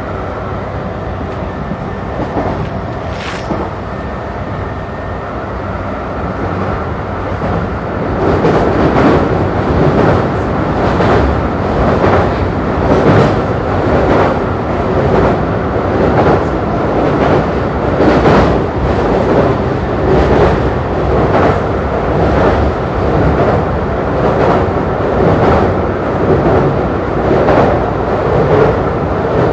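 JR E235-series commuter train running at speed, heard from inside the car: a steady rumble of wheels on rail that gets louder about eight seconds in, with a regular clack about once a second.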